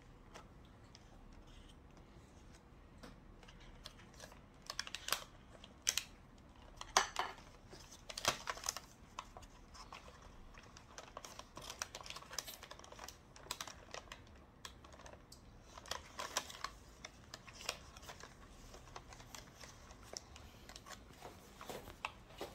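Light, irregular clicking and tapping while kimbap is assembled: chopsticks and fingers placing fillings on rice on a bamboo rolling mat, and the mat's slats knocking as it is handled. The taps come in scattered clusters, the loudest a few seconds in.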